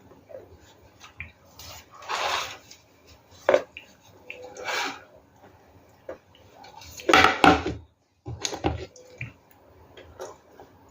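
Ice being bitten and chewed close to the microphone: a handful of crunches at uneven intervals, the loudest about seven seconds in.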